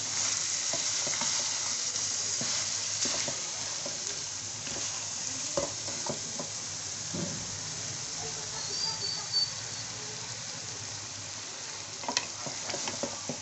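Chicken, potatoes, onion and tomato sizzling steadily in a metal wok, with a wooden spatula stirring and scraping through them and knocking against the pan now and then.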